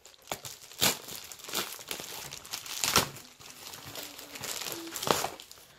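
Packaging crinkling and tearing as an ipsy subscription mailer is opened by hand, in irregular sharp rustles, the loudest about three seconds in.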